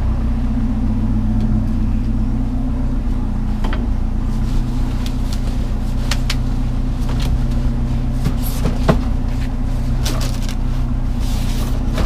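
A vehicle engine idling with a steady low hum. Scattered clicks and rustles of items being handled start about four seconds in.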